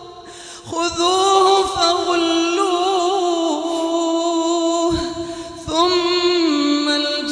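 Quran recitation in melodic tajweed style: a single unaccompanied voice chants long held notes with wavering ornaments. The voice comes in under a second in and breaks off briefly around five seconds before carrying on.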